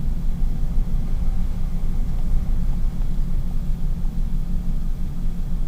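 A loud, steady low rumble with a deep droning hum.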